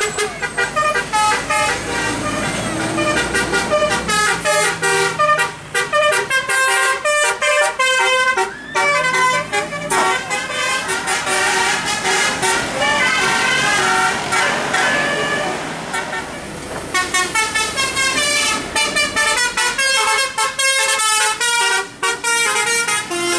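Multi-tone Basuri 'telolet' bus horn playing fast melodic runs of short notes that change pitch several times a second, with a few brief breaks between phrases.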